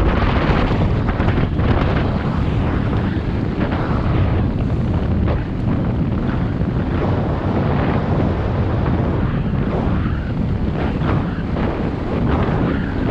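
Loud, steady wind noise buffeting the microphone of a GoPro Hero 7 Black action camera.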